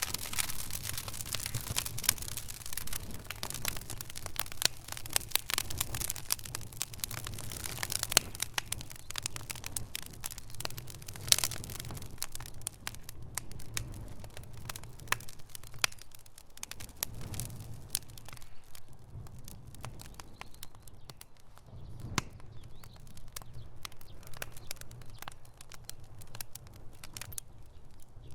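Fire crackling: many sharp pops and snaps over a steady low rumble of burning. The pops are thickest in the first half and thin out later on.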